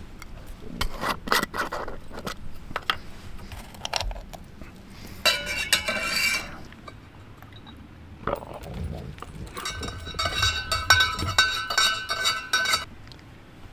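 Metal dishes and utensils being handled: scattered knocks and scrapes, then two stretches of rapid ringing clinks, the second longer and louder.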